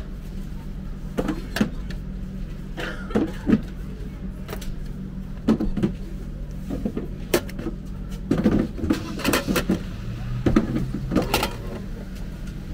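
Light clacks and knocks as the hinged plastic flap of a vending machine's outlet is pushed open and a ramen bowl is lifted out of the compartment, over a steady low hum.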